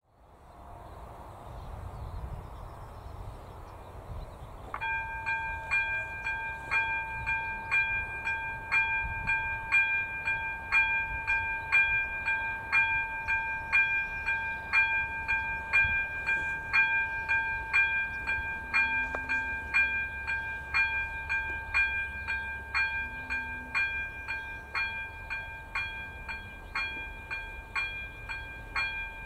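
Electronic warning bell (AŽD ZV02) of a Czech level crossing ringing: a steady ringing tone with evenly spaced strokes, starting about five seconds in. It marks the crossing's warning as activated for an approaching train.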